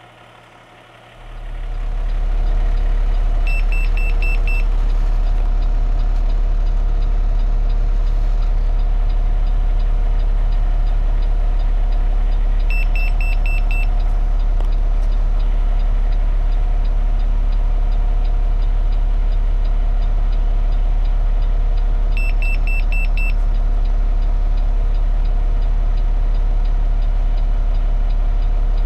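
Steady low drone of the refuse truck's engine idling, starting about a second in. Over it, three short bursts of about five quick high beeps: the PreView Side Defender II in-cab alarm sounding as it detects a person in the truck's side blind spot.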